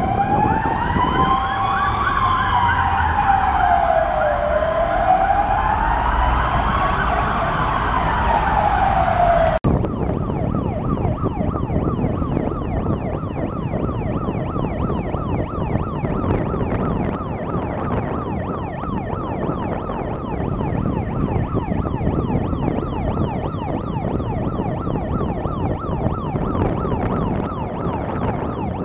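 An emergency vehicle siren wailing, rising and falling slowly about once every four to five seconds, over traffic rumble. After a cut about ten seconds in, a different siren sounds a fast, rapid yelp with a duller tone.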